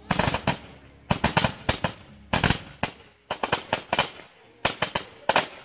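A Big Fireworks Neon Tracer 196-shot super candle firing: clusters of sharp launch reports, several shots in quick succession, about once a second.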